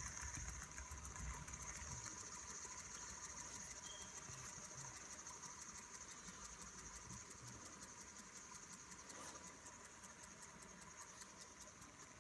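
Fidget spinner whirring on its bearing: a faint, steady high-pitched whirr with a fast, even pulsing that slowly fades as the spinner runs down.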